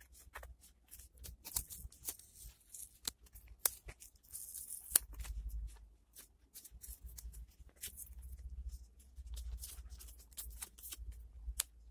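Adhesive tape being peeled off cardboard while cardboard pieces are handled: a run of sharp crackles and clicks, with stretches of high tearing hiss about two and four seconds in, over a low hum.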